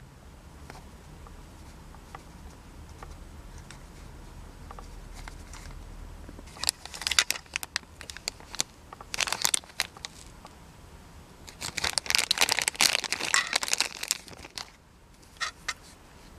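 Thin clear plastic bag crinkling as it is handled and opened to free a small toy figure. The crinkling comes in several irregular bursts starting about six and a half seconds in, the longest lasting about three seconds, after a few faint clicks.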